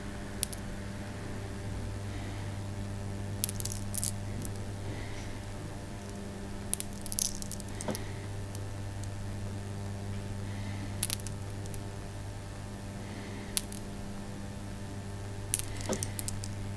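Loose 9 mm Tahitian pearls clicking against each other in scattered bursts as they are rolled and shuffled between two hands, over a steady low electrical hum.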